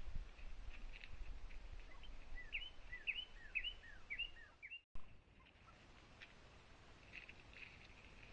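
A songbird singing a quick run of about ten short, slurred whistled notes, faint against the woodland background. The sound cuts out abruptly about five seconds in, after which only a few faint chirps are heard.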